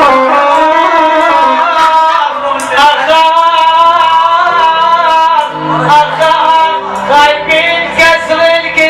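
Iraqi mawwal performance: music with singing, long ornamented melodic lines that slide and waver in pitch over a low bass.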